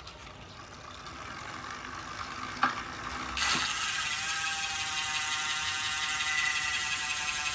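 Freehub on the rear wheel of a bicycle spinning: a whir building up as the wheel is spun, a single click, then from about three and a half seconds in a loud, steady buzz of the freehub pawls clicking over as the wheel coasts.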